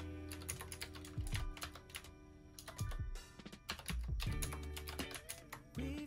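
Typing on a Qwerkywriter retro typewriter-style mechanical keyboard with round keycaps: a rapid run of clacking keystrokes that thins out briefly about two seconds in. Soft background music plays underneath.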